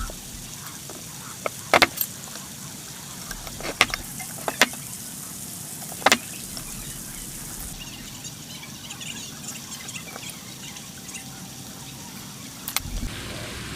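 Sharp knocks on wood, several seconds apart, over a steady hiss.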